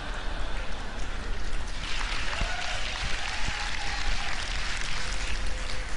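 Audience applauding, the clapping thickening about two seconds in.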